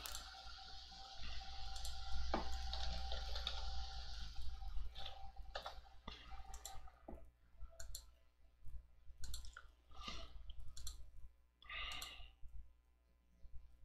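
Computer mouse clicks and keyboard keystrokes, sparse and irregular, as a name is typed into a form and options are picked from a dropdown.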